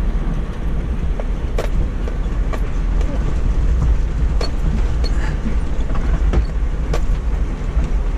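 Vehicle driving along a rough dirt track: a steady low rumble of engine and tyres, with a few sharp knocks and rattles scattered through it.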